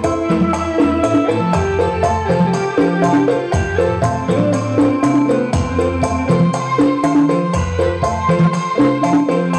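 Upbeat music played through a Golden Sound 12-inch passive speaker under test, with a steady shaker-and-tambourine beat over a bass line of held low notes.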